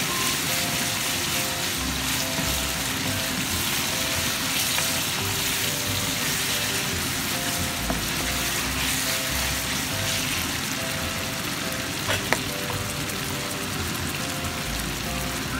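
Chicken livers with onions and garlic sizzling steadily in hot oil in a frying pan while being stirred with a wooden spatula. Two sharp knocks come about twelve seconds in.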